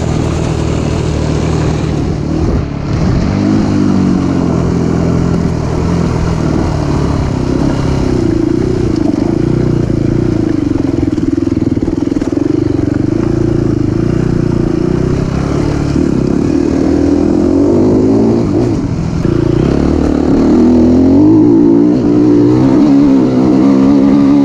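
Enduro motorcycle engine running under way, its pitch rising and falling as the throttle is opened and closed, with clear climbs in revs a few seconds in, around the middle and again near the end.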